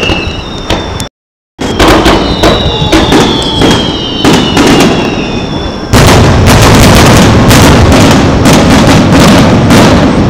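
Fireworks display: a quick series of bangs and pops with falling whistles from whistling shells, then from about six seconds in a loud, dense, continuous crackling barrage as large shells burst. The sound cuts out briefly about a second in.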